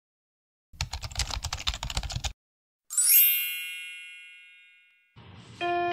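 Intro sound effects: a rapid run of keyboard-typing clicks lasting about a second and a half, then a bright shimmering chime that swells and slowly fades. Electronic keyboard notes begin right at the end.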